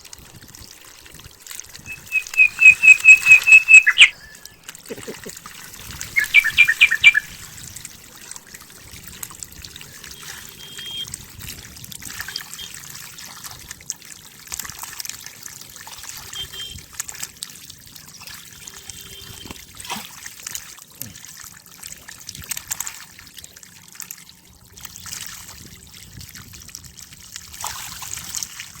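Water trickling and splashing, with many small splashes. Twice, about two seconds in and again about six seconds in, a bird gives a loud, rapid series of piping notes, the loudest sound here.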